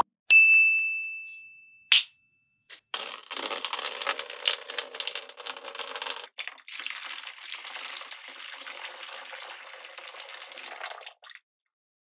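A bright ding sound effect that rings and fades over about a second and a half, followed by a long, dense clatter of many small clicks and patter, with a brief break midway, that stops near the end.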